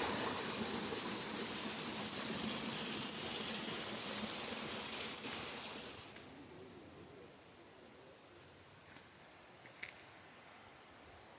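Forest insects droning loud and high for about six seconds, then falling away. After that a faint high chirp repeats evenly about twice a second.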